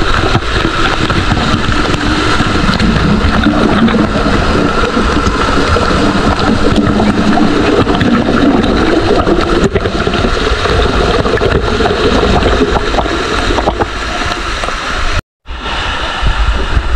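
Water rushing and splashing over a rock right at the microphone of a small spring-fed waterfall, loud and steady with a low rumble. It cuts out abruptly for a moment near the end.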